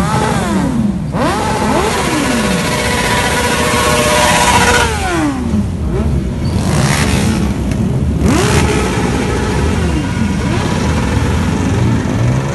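A group of motorcycles, sport bikes among them, riding past one after another. Several engines are revving up and falling back at once, their pitch rising and dropping repeatedly.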